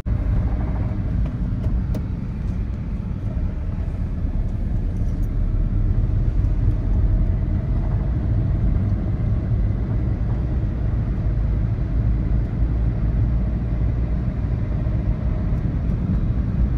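Car on the move: a steady, low road-and-engine rumble.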